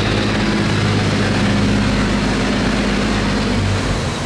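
Boat engine running steadily with a low, even hum; it stops near the end.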